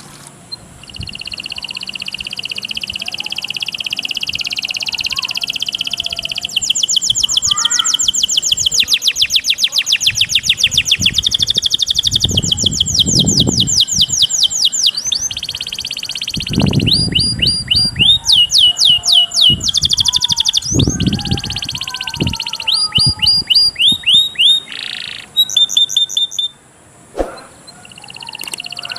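Recorded songbirds from a mastering track of cililin, cigun and canary song: long runs of fast, high trills and rapidly repeated chirps, broken by short pauses near the end, with a few brief low rumbles underneath.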